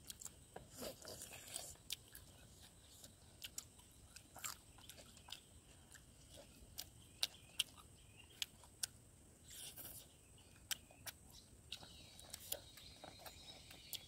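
Faint close-up chewing of pork and rice: scattered soft mouth clicks and smacks at irregular intervals.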